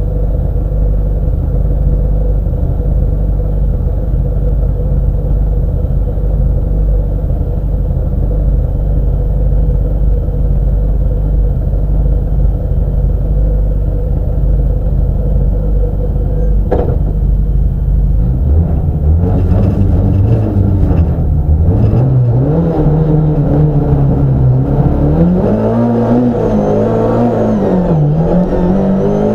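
Lada 1.6 engine heard from inside the cabin, idling steadily in neutral, then revving up and down over the last third and pulling away in first gear near the end.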